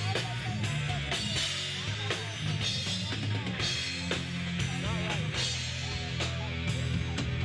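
Live rock band playing, with a drum kit keeping a steady beat under the rest of the band.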